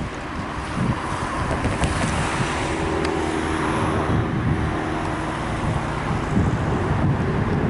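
Wind buffeting the microphone over the steady noise of road traffic, with a vehicle passing about midway.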